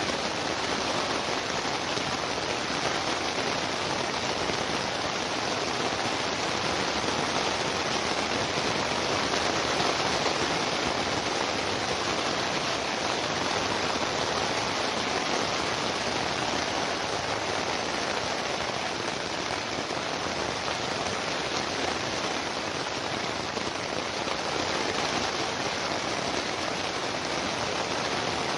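Steady rain falling, an even hiss that holds without pause or change, used as white noise for sleep.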